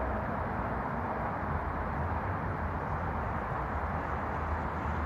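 Steady outdoor background noise: an even low rumble with a soft hiss, no distinct events.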